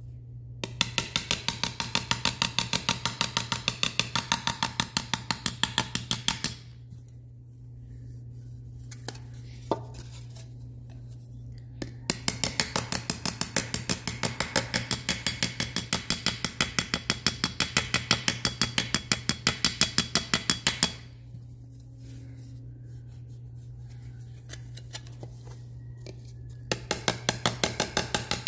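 Small hammer tapping dents out of an aluminum seat molding held over an anvil: rapid light metallic taps, about four or five a second, in three runs with pauses of about five seconds between.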